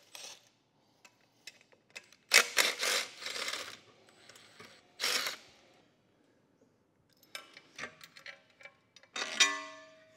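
Metal exhaust parts and tools being handled: several short scrapes and scattered clicks. Near the end comes a sharp metal clank that rings on briefly with several tones.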